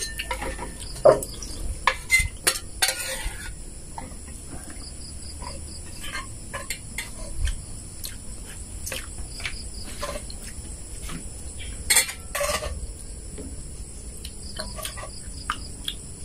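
Spoon and fork clinking and scraping on ceramic plates and bowls: scattered light clicks with a few louder clatters, over a steady high drone of insects.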